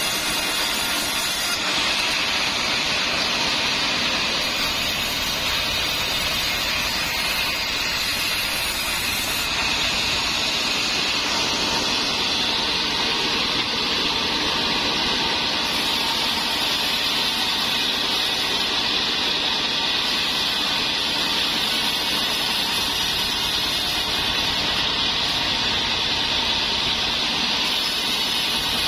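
A large engine-driven band sawmill ripping a slab of trembesi (rain tree) timber lengthwise. The blade cutting and the engine make a steady, unbroken mechanical hiss and whine.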